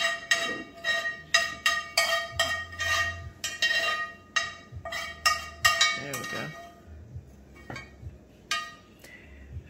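Metal spoon scraping and knocking against a skillet as sautéed bell pepper and onions are scraped out of it: a quick run of ringing metallic scrapes and taps that thins out over the last few seconds.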